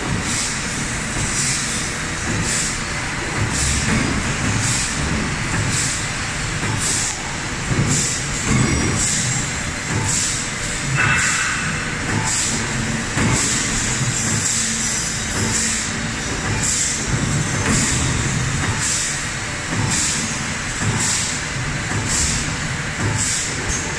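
Moving bolster of a large straight-side mechanical press travelling on its floor rails: a low machine rumble with a regular hissing tick about every two-thirds of a second.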